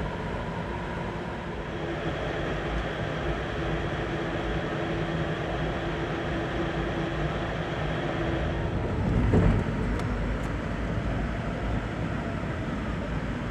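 Steady rumble and wheel-on-rail noise of an Amtrak Auto Train sleeping car rolling at speed, heard from inside the room. A short, louder low rumble comes about nine seconds in.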